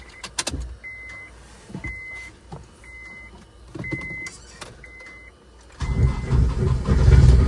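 Honda Accord's dashboard warning chime beeping about once a second, six short beeps. Then, about six seconds in, the engine is cranked for a start and gives a loud, rough rumble for about a second and a half, a rough-sounding start on a freshly installed junkyard engine.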